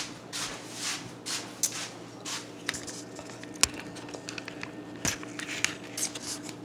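Handling noise as the recording camera is picked up and moved: irregular rustles and scrapes with a few sharp clicks, the sharpest a little past halfway, over a faint steady hum.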